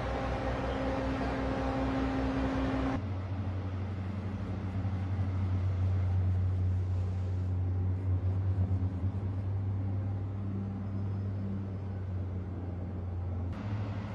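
Heavy amphibious vehicle engines running in a steady low drone with a constant hum. About three seconds in, the sound changes abruptly to a deeper, steady engine drone.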